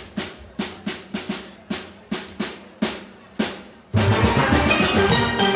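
A drum struck alone in a steady run of single hits, about three a second, leading the band in. About four seconds in, a full steel orchestra comes in loudly, steelpans ringing over drums.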